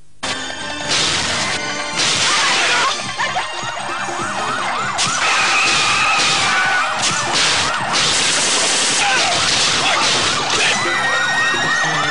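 Vehicle siren yelping in quick repeated rising sweeps, starting a few seconds in, over car-chase action with several loud bursts of noise.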